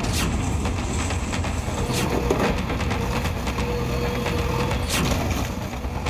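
JCB backhoe loader's diesel engine running under load while its bucket pushes down brick walls, with a few sharp crashes and a faint whine in the middle.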